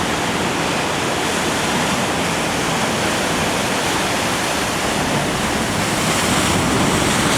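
Heavy surf crashing and rushing over a rock jetty, a dense, steady roar of churning whitewater. Some wind buffets the microphone.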